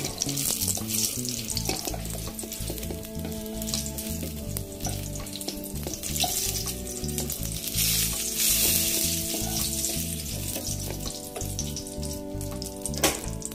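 Hot oil sizzling in a frying pan as fried eggplant pieces are lifted out, the sizzle swelling around the middle. A sharp clink near the end.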